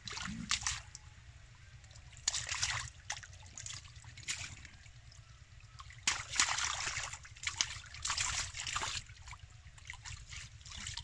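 Shallow muddy water splashing and sloshing as a large catfish is gripped by hand and thrashes. The splashing comes in bursts, once at the start, once about two seconds in, and a longer spell from about six to nine seconds in.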